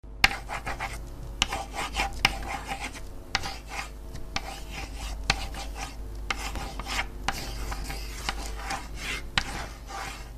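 A pen drawing on paper: irregular scratching strokes of varying length, over a faint low hum.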